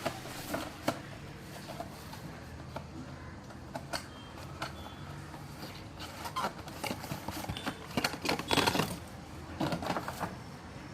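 Box and packaging being handled during an unboxing: irregular clicks, taps and rustles, with a busier, louder patch of rustling and handling about six to nine seconds in.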